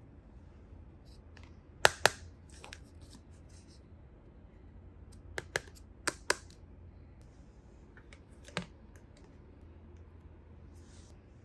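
Sharp clicks and taps of small plastic toy pieces being handled and set down: a pair about two seconds in, four quick ones around five to six seconds, and one more near nine seconds.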